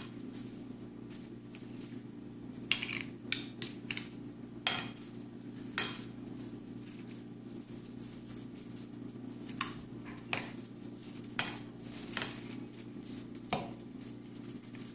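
Two metal spoons stirring diced fruit in mango juice in a ceramic bowl, clinking against the bowl about a dozen times at irregular intervals, several close together early on. A steady low hum runs underneath.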